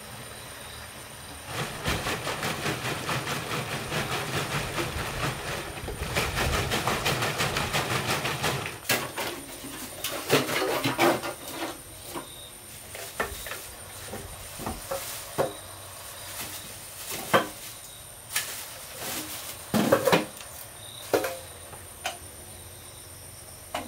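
Varnish being mixed in a cut-open plastic jug: a fast, even rattling for about seven seconds, then scattered knocks and clicks as cans and tools are handled.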